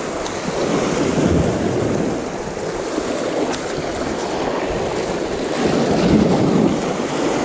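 Sea surf washing and breaking against rocks, a steady rushing, with wind buffeting the microphone.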